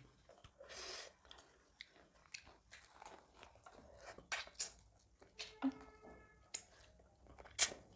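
Close-miked mouth sounds of eating by hand: irregular soft chewing and wet lip-smacking clicks of two people chewing millet dhido and chicken curry, with one louder smack near the end.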